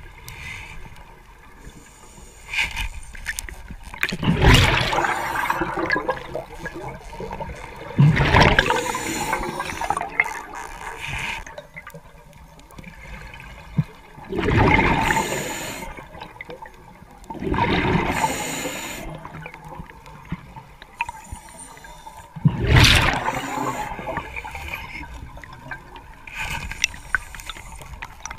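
A diver breathing through a regulator underwater: loud gurgling bursts of exhaled bubbles come about every four to six seconds, five times, over a lower background of water.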